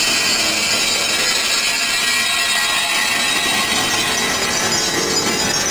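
Sci-fi light-beam sound effect for Ultraman Cosmos's sparkling ray: a loud, steady hissing rush with a high ringing shimmer on top, holding at one level.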